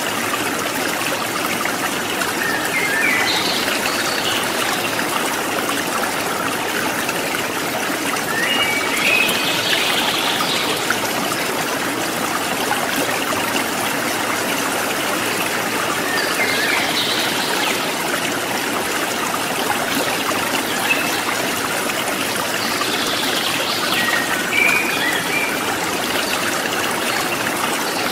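Steady running water, a continuous trickling and splashing hiss. A few short, high chirps come through it at intervals.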